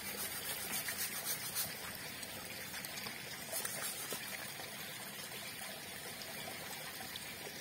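Water trickling steadily, with a few short scraping strokes in the first two seconds and again about three and a half seconds in, as the sole of an elephant's foot is scraped and cleaned by hand.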